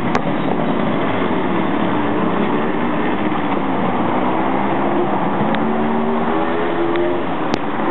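An engine running steadily, its pitch wandering slowly up and down over a rushing noise, with a few sharp clicks near the end.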